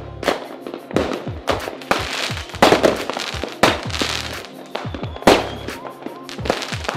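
Aerial firework shells bursting in quick succession, several sharp bangs a second with crackling after them. The loudest bangs come near the middle and about two-thirds of the way through.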